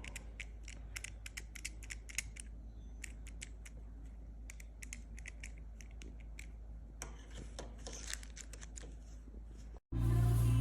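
Smart door lock worked by hand, giving many short irregular clicks and small rattles while its latch does not work; a steady low hum sits underneath. Near the end the sound cuts out and music begins.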